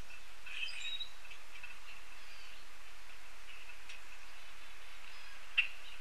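Wild birds giving a few brief chirps about half a second in, over a steady faint outdoor background, with one sharp tap near the end.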